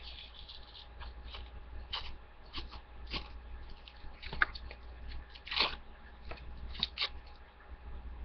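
The paper and cardboard casing of an air bomb firework being picked and torn apart by hand: irregular crinkling, tearing and sharp cracking, loudest twice in the second half.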